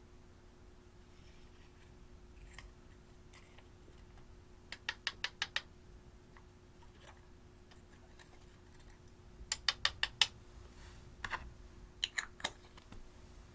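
Slime being poked and pressed by fingers, making quick runs of sharp popping clicks: about five in a row, then about six, then a few scattered ones near the end.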